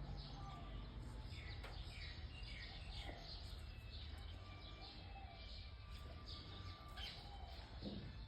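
Faint bird chirps and short calls, many brief notes, some sweeping downward, over a low steady hum.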